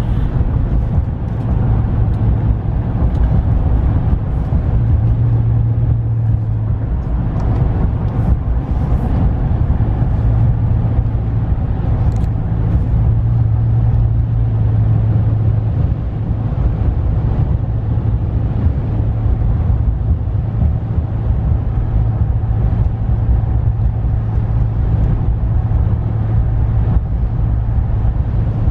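Steady drone of a 2015 Dodge Ram's 5.7-litre Hemi V8 with road and tyre noise, heard from inside the cab while the truck cruises.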